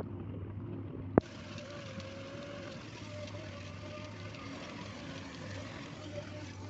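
Excavator engine running steadily with a low hum. A single sharp click about a second in.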